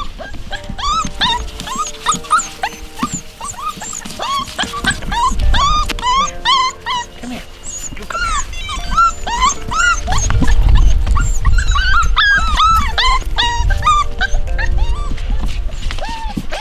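A litter of six-week-old Portuguese Water Dog puppies whining and yipping as they play, many short high-pitched whines one after another, with soft background music underneath.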